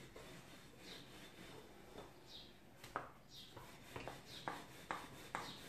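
Rolling pin rolling out layered, flour-dusted dough on a stone countertop: faint back-and-forth rolling strokes with light knocks, about two a second in the second half.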